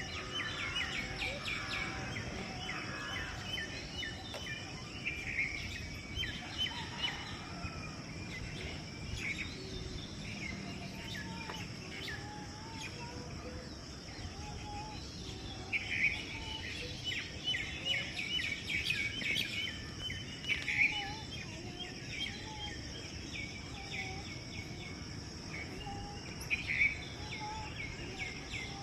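Several birds chirping and calling in a morning chorus, with many short rapid chirps and trills and a few lower calls, over a steady high insect drone.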